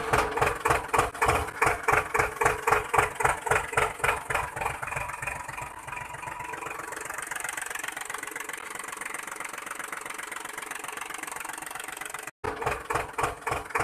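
Tractor diesel engine chugging at about four beats a second, growing quieter and smoother after about five seconds; it breaks off for a moment near the end, then chugs again.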